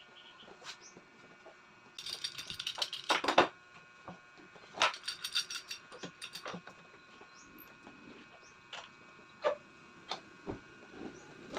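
Scattered clicks, taps and short scraping sounds of tools and wood being handled, over a faint steady hum.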